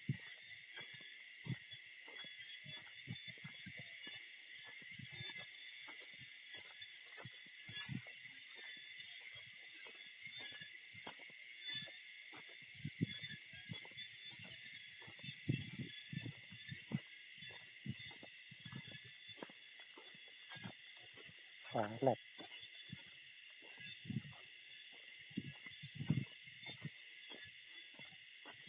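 Night insect chorus: a steady high-pitched trilling with a faster pulsing trill above it. Scattered low taps and knocks run underneath, and a louder low sound comes about three-quarters of the way through.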